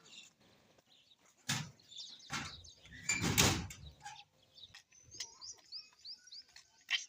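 A few sudden knocks or bangs, the loudest about halfway through, then a small bird chirping a quick run of short rising notes, about four a second.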